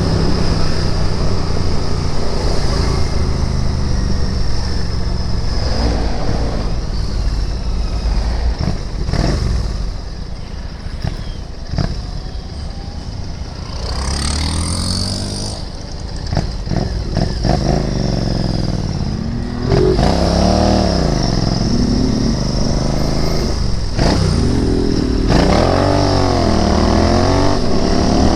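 Royal Enfield Interceptor 650's 648 cc parallel-twin engine and exhaust running under way. The note drops back for a few seconds near the middle, then rises and falls again and again in the last third as the rider revs through the gears.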